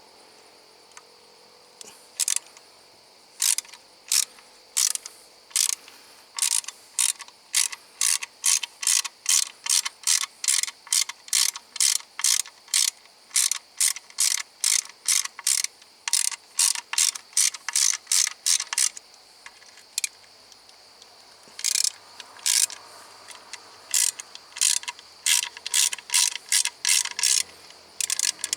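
Ratchet wrench clicking in quick back-and-forth strokes, about two a second, with a short pause partway through: bolts being turned by hand.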